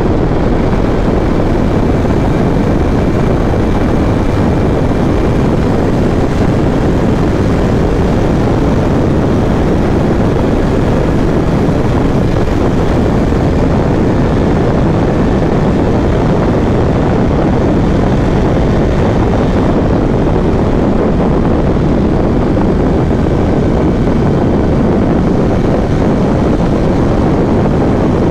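Royal Enfield Interceptor 650's parallel-twin engine running at a steady cruise, heard from the rider's seat under heavy wind rush on the microphone. The level stays even, with no revving or gear changes standing out.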